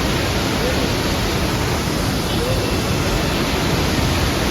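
Monsoon-swollen mountain waterfall pouring down, a loud steady rushing roar of falling water.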